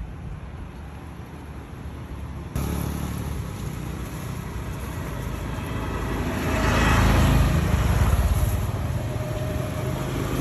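A motor vehicle running, a low rumble with road noise that jumps up suddenly a few seconds in and grows loudest in the second half.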